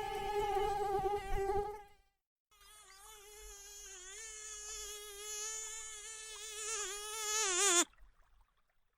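Mosquito's wings whining in flight, a thin high-pitched buzz. One pass fades out about two seconds in; after a short gap a second pass swells louder, its pitch wavering, then cuts off suddenly near the end.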